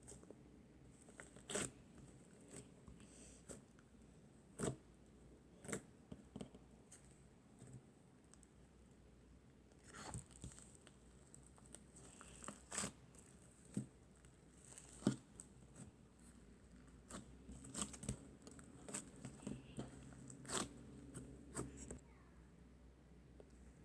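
Slime being squished and pulled by hand, giving scattered sharp pops and crackles that come more often in the second half.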